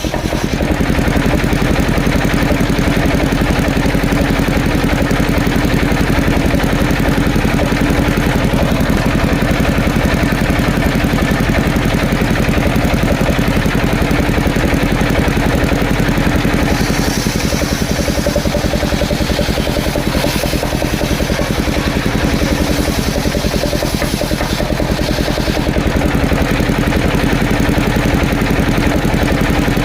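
Engine of a mobile circular sawmill running steadily with a fast, even pulse. A higher hiss joins it for several seconds past the middle.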